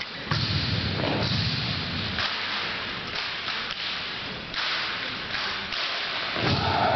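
JROTC drill team's rifle drill: a run of sharp slaps and thumps as hands strike the rifles and rifle butts and boots hit the wooden gym floor, in quick irregular succession.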